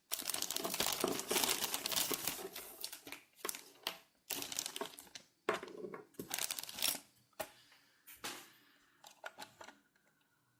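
Plastic packaging crinkling and rustling as a new toilet fill valve is unwrapped. The sound is dense for the first few seconds, then comes in shorter bursts that thin out near the end.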